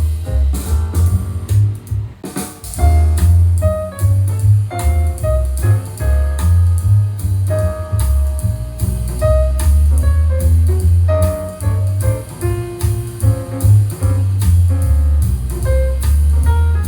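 Instrumental jazz-style music played back as a speaker sound test: piano over a deep, steady bass line and drum kit, with a brief drop in the music about two seconds in. The playback is through Edifier 1280 speakers driven by an FX Audio Tube 03 tube preamp.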